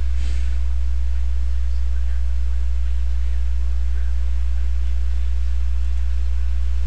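Steady low electrical hum with a faint hiss under it, the mains hum and noise of the recording microphone's line, unchanging throughout.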